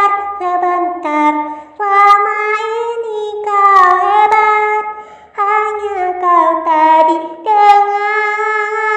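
Background music: a high voice singing a slow melody in held notes that slide from one pitch to the next.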